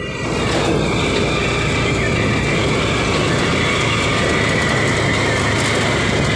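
A motorcycle tricycle on the move, heard from its sidecar: steady engine and road rumble mixed with wind noise.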